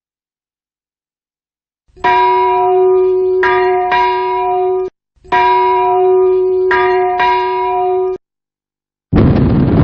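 Two long, loud bell-like chimes, each held about three seconds and re-struck partway through, both cut off abruptly. Near the end a loud crash begins and starts to fade, leading into title music.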